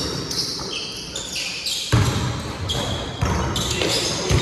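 Basketball bouncing on a court floor during play, with two heavy bounces about two seconds in and near the end.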